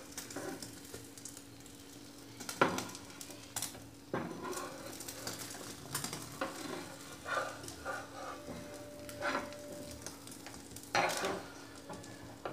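A metal spatula scrapes and knocks on a flat cast-iron tawa as an egg omelette is folded over bread slices, with the egg sizzling underneath. The scrapes come irregularly, with a few sharper knocks, over a faint steady hum.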